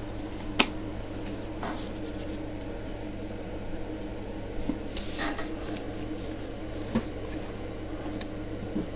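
Steady low room hum with a few faint clicks and two brief rustles, from trading cards and wrappers being handled.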